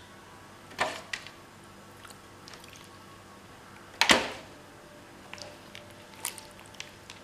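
Disposable aluminium foil roasting pan crinkling as raw chicken pieces are laid into it by hand: a few short crackles, the loudest about four seconds in.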